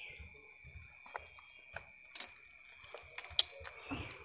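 Irregular small clicks and taps of hands handling fiber-optic drop cable and a handheld optical power meter, the sharpest click a little over three seconds in, over a steady high-pitched tone.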